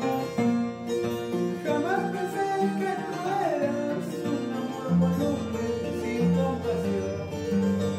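A 36-string wooden harp plucked, with a melody over bass notes that grow stronger about five seconds in. A man sings along with it, clearest about two to four seconds in.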